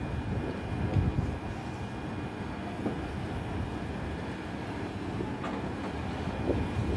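Distant jet airliner engines: a steady low rumble.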